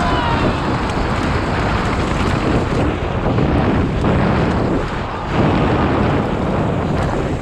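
Heavy wind noise on the microphone of a rider-mounted camera during a fast downhill mountain-bike descent, with a short dip about five seconds in and a louder rush after it.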